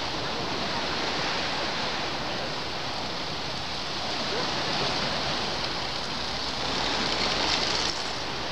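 Sea surf breaking on the beach: a steady rushing wash of waves, swelling louder about seven seconds in and dropping back suddenly near the end.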